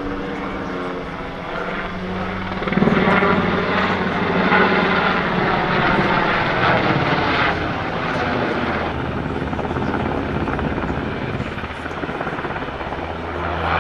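NH90 TTH Caiman helicopter flying overhead, the steady sound of its rotors and twin turboshaft engines. It grows louder about three seconds in and eases off again after about seven seconds.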